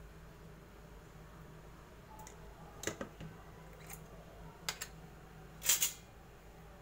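A few sharp plastic clicks as a flip-top lid snaps shut on a plastic salt container, followed by one louder short noise near the end.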